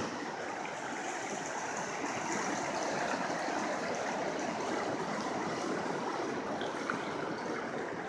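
A river in spring high water rushing over rapids and rocks: a steady, even rush of water.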